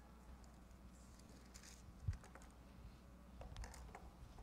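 Faint rustling and small clicks of Bible pages being turned and handled, with a single soft low thump about two seconds in.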